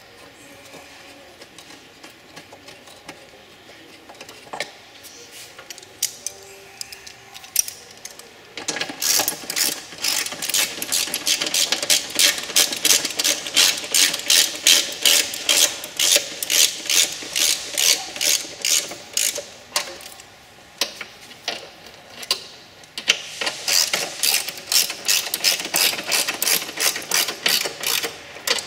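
Hand ratchet wrench clicking, tightening the nuts on the engine computer's mounting studs. It clicks faintly at first, then in fast, even runs from about a third of the way in, with a short break before the last run.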